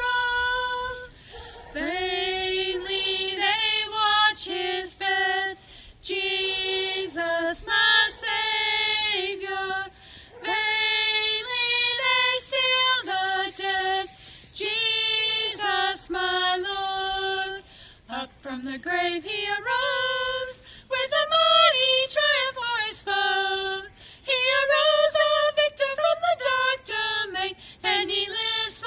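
A woman singing a hymn solo in long held phrases with short breaths between them, and no instrument heard beneath her voice.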